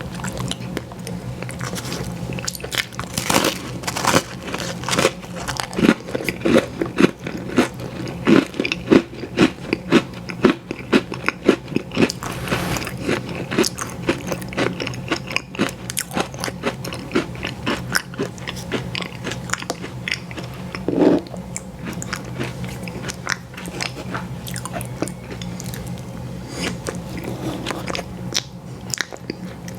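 Biting and chewing an ice cream sandwich: irregular crunchy chewing clicks, densest through the first half, with one louder bite about twenty-one seconds in.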